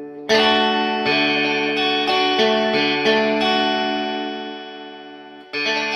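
Electric guitar played through a distortion pedal: a chord struck hard, then several notes changing over it, ringing out and slowly fading, then another chord struck near the end.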